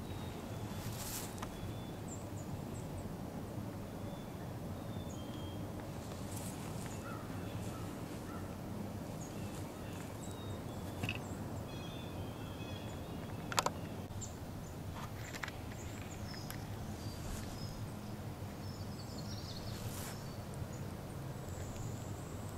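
Outdoor ambience: a steady low rumble with scattered short, high bird chirps, and a sharp click about halfway through.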